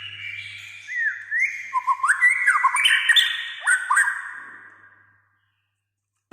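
White-rumped shama (murai batu) singing a rapid, loud phrase of whistles and sharp up-and-down slurred notes that fades out about five seconds in. A faint low hum lies under the first part.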